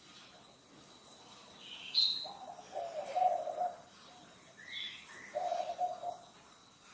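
A dove cooing in two low phrases, the first about two seconds in and the second near the end, with a couple of short, higher bird chirps in between.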